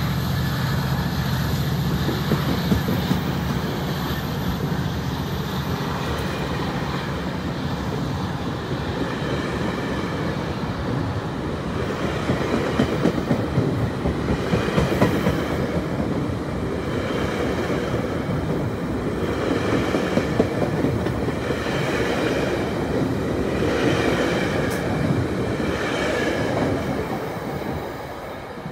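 GO Transit bilevel passenger coaches rolling past close by, their wheels clattering on the rails in repeated louder bursts. The sound fades away near the end as the last car pulls off down the track.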